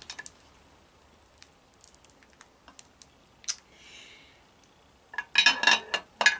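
King crab leg shell being cracked and pulled apart by hand: scattered small clicks and a sharper snap about halfway through, then a louder run of cracking and clatter near the end.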